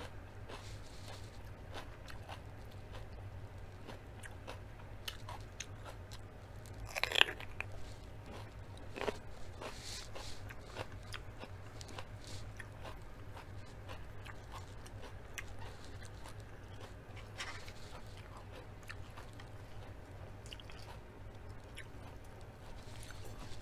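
Close-up chewing and crunching of raw mini sweet pepper, many small wet crunches with one louder bite about seven seconds in, over a low steady hum.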